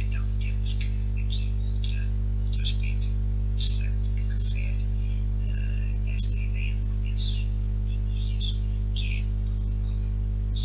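A steady electrical mains hum throughout, with many short, high-pitched chirps and squeaks scattered over it.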